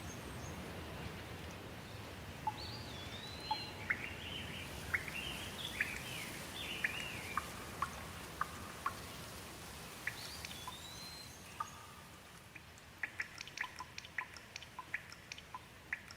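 Rain falling steadily while a bird calls in short whistled glides and chirps. About three-quarters through, the rain thins and a quick, irregular run of sharp drips takes over.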